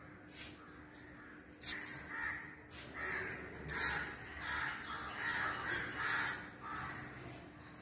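A bird calling repeatedly: a series of about eight short, harsh calls beginning about a second and a half in, with a few sharp clicks among them.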